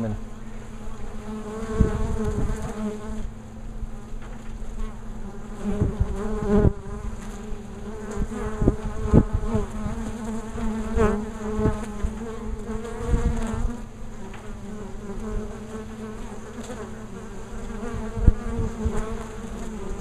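Honey bees buzzing at the hive entrance: a steady hum of many wings, with frequent louder swells as single bees fly close by.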